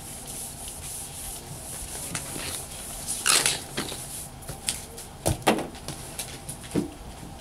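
Whiteboard eraser rubbing across a whiteboard, with the longest and loudest wipe about three seconds in. It is followed by a few sharp knocks and clicks a couple of seconds later.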